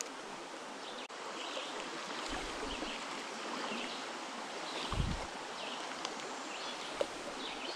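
Shallow creek water running steadily over rocks, with a couple of brief low bumps, about two seconds in and again about five seconds in.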